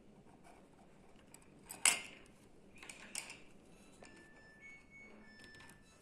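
A sharp clack about two seconds in, then a softer clatter about a second later, as a mother-of-pearl shell pendant is set down on a wooden tabletop.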